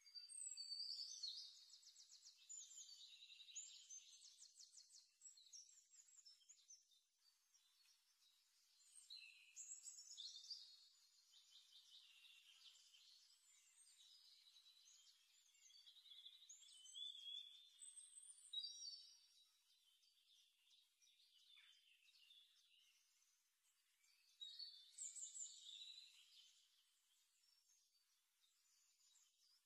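Faint bird chirping and twittering, high-pitched, in four bursts of a few seconds each with quieter gaps between.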